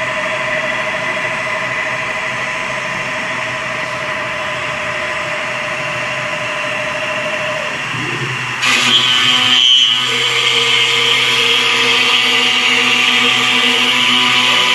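CNC router spindle running and cutting wood: a steady whine over machining noise. About two-thirds of the way through, the sound changes abruptly and gets louder, with a different, higher whine.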